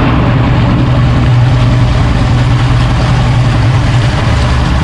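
Yamaha 200 Saltwater Series OX66 outboard, a fuel-injected two-stroke V6, running steadily with the boat under way, its low drone mixed with the rush of the wake.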